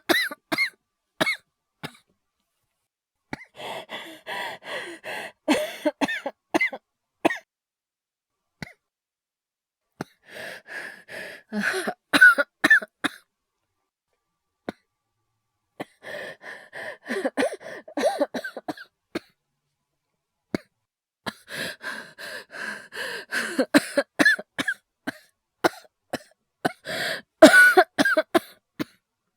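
A male voice actor's acted coughing: five fits of rapid, racking coughs with breaths between them, each a few seconds long and separated by short silences. The last fit, near the end, is the loudest.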